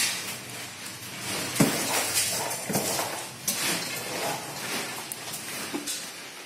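Solid-fuel fire burning in a pyrolysis stove: a steady rushing noise with irregular sharp crackles.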